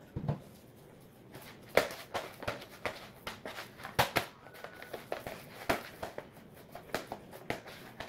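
Hands kneading soft, oiled mandazi dough in a plastic basin: a dozen or so irregular slaps and taps as the dough is lifted and pressed back down. The dough has come together and is starting to release from the hands and basin.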